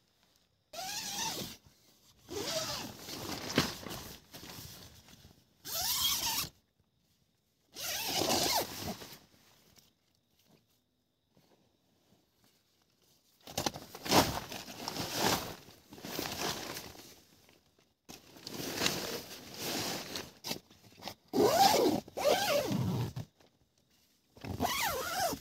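Zippers being pulled and tent fabric handled while a tent is pitched. The sound comes in a series of short bursts, each starting and stopping abruptly, with silent gaps between them.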